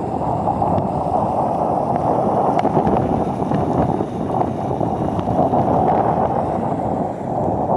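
Steady, muffled rushing of heavy rain and wind buffeting the microphone, dipping briefly twice.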